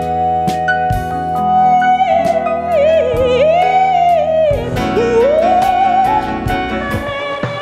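Female singer holding a high F#5 for about two seconds, then running down and back up to it in a melisma with vibrato, over band accompaniment with bass and drums.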